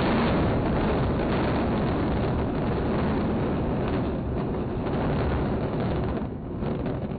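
Explosive controlled demolition of a high-rise concrete tower: a heavy, continuous rumble of the blasts and the collapsing building, easing off near the end.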